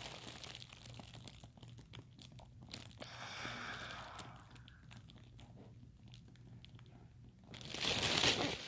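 Soft scratching and rustling of hair and fabric rubbing against a phone's microphone, with a louder rustle near the end. A faint steady hum lies underneath.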